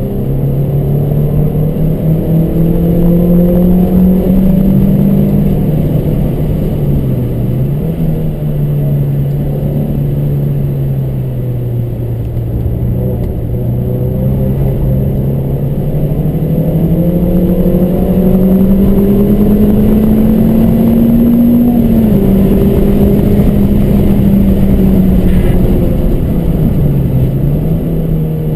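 Car engine running hard on a circuit lap. Its pitch climbs slowly under acceleration, drops sharply about twenty-two seconds in, and dips briefly twice as the driver lifts or changes gear, with steady road and tyre noise underneath.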